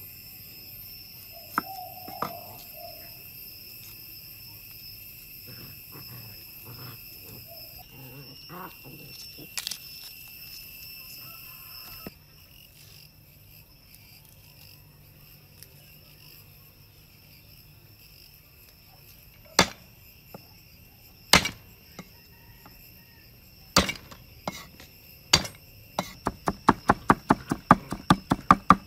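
Knife blade striking a wooden cutting board: a few separate cuts, then from about 26 s a quick, even run of chopping at about four strokes a second as shallots are minced. Insects trill steadily in the background through the first half.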